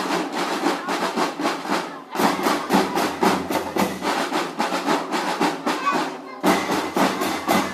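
Marching drum band percussion, mostly snare drums, playing a fast, dense rhythm that breaks off abruptly twice and starts again.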